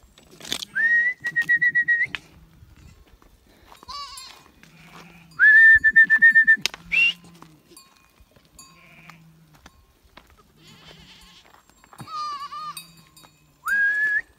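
A herder whistling to drive a herd of goats: three long, steady, high whistles, each sliding up at the start. Goats bleat in between with shorter, wavering calls.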